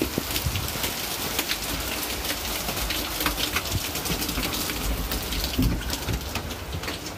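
Heavy rain pouring down: a steady hiss dotted with many small ticks of drops striking close by.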